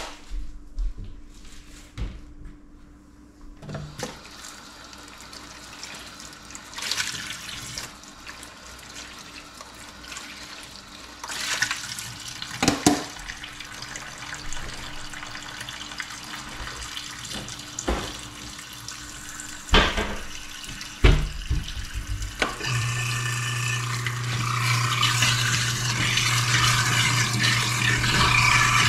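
Kitchen faucet running into a stainless steel sink, with a few sharp clunks of things handled in and around it. About three-quarters of the way through, a steady low hum starts and the water noise gets louder.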